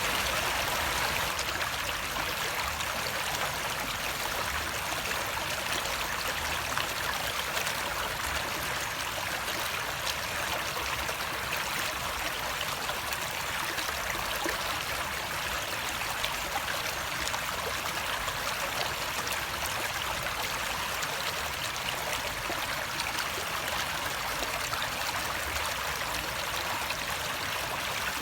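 Flowing water: a steady, even rush of a stream or small waterfall, with no change.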